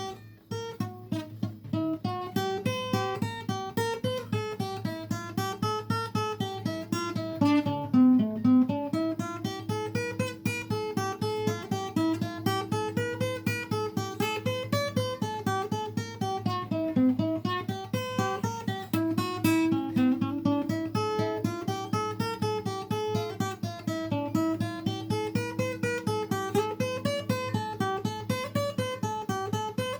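Acoustic guitar playing an instrumental passage: quick picked notes running up and down in repeating patterns over a steady low bass note.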